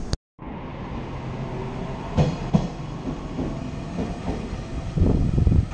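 Train running on rails: a steady low rumble with two sharp clunks about two seconds in, growing louder near the end. The sound cuts out for a moment at the very start.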